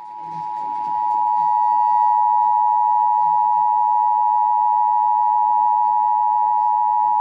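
Emergency Alert System attention signal played from a radio station's web stream through a computer's speakers: a steady two-note tone, held for about seven seconds, grows louder over the first second and cuts off abruptly at the end. It signals an emergency alert, here a severe thunderstorm warning.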